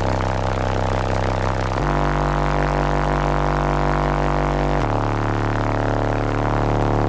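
Four American Bass VFL 18-inch subwoofers, walled into a truck, playing bass music at full demo level, heard inside the cab. The sound is a loud, sustained low drone that shifts to a new note about two seconds in and again about five seconds in.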